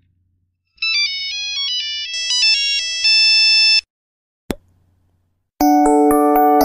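Phone notification ringtone: a quick jingle of high electronic notes stepping up and down, ending on a held chord. After a short click, a second, fuller ringtone tune with lower chords begins near the end.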